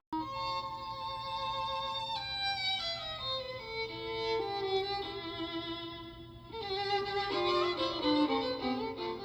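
Music with a violin playing the melody, coming from a restored KLH Model 8 FM table radio tuned to a station.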